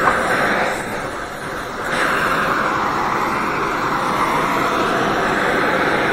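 Gas welding torch flame hissing steadily as it heats a cast iron exhaust manifold before brazing. It weakens about a second in and comes back abruptly at two seconds.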